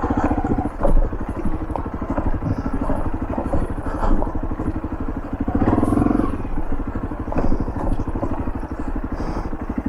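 Motorbike engine running steadily at low speed in an even, rapid pulse, with scattered knocks and rattles from the bike on a rough, stony track. The engine swells louder for about a second around six seconds in.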